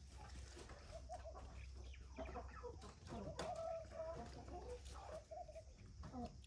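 Chickens clucking, a run of short calls with one longer drawn-out call in the middle, over a faint steady low hum.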